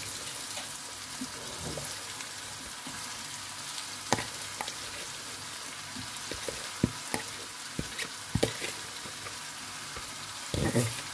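Vegetables frying in oil in a pan, a steady sizzle as shredded cabbage is piled in and spread by hand, with scattered light knocks a few seconds in and a louder one near the end.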